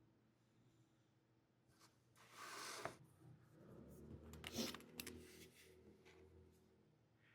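Craft-product packaging being handled: a short rustling scrape about two seconds in, then a longer spell of crinkling with a few sharp clicks around four to five seconds in.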